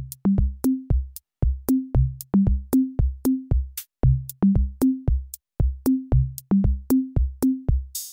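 Background music stripped down to a bare drum-machine beat: steady deep kick-drum thumps with sharp clicks between them, a few hits a second. The synth chords come back right at the end.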